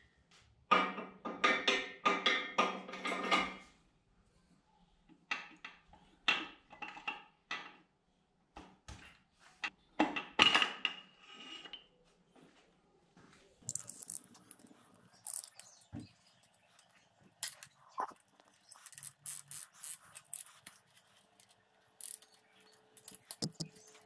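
Metal clattering and scraping as a piston and its ring compressor are worked loose from a cylinder bore, where the oil ring has caught in the compressor. The loudest rattling comes in the first few seconds, then shorter bursts and scattered light metal clicks.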